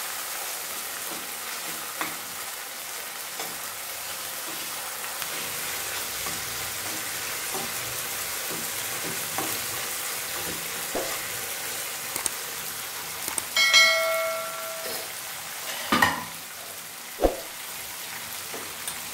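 Chopped tomatoes, green chillies and curry leaves sizzling in hot oil in a non-stick kadai, stirred with a metal spoon while the tomatoes fry down until soft. Near the end a short metallic ring sounds, then two sharp knocks.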